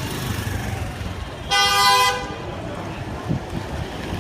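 A vehicle horn blows once, a single blast of about half a second, over the steady rumble of street traffic.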